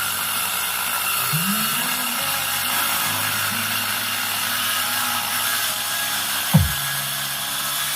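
Remixed dance music played back through a Subscoop D15 loudspeaker. Bass notes slide up and hold, a deep falling bass hit comes about six and a half seconds in, and a steady hiss runs over the top.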